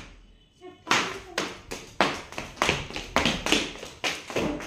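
Quick, even footsteps on a hard tiled floor, about three steps a second, starting about a second in.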